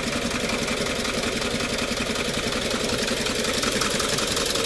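Bharat Benz 1214 truck's diesel engine idling steadily just after a head gasket repair. The mechanic says it sounds fine, meaning it is running normally again.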